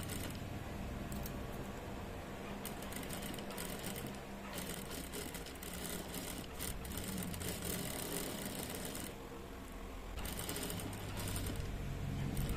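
Sewing machine running steadily, stitching a long gathering stitch through a fabric frill strip. It eases off briefly about nine seconds in, then runs on.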